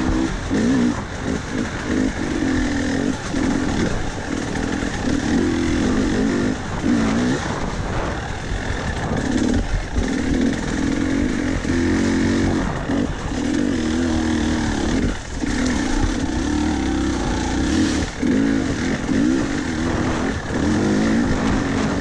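KTM 300 two-stroke dirt bike engine running under load on a trail, its pitch rising and falling as the throttle is opened and rolled off every second or two, with brief throttle cuts.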